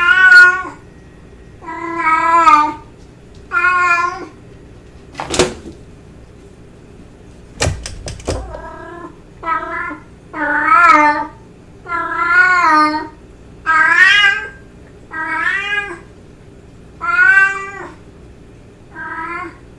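Domestic cat meowing over and over, about eleven drawn-out meows that bend up and down in pitch with short pauses between them: calls given as a cat's courtship calls. Sharp clicks come once about five seconds in and again around eight seconds.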